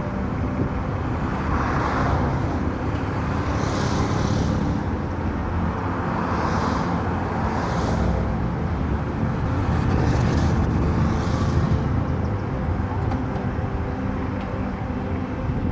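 Car driving on a road: a steady low rumble of road and engine noise, with a higher hiss that swells and fades several times.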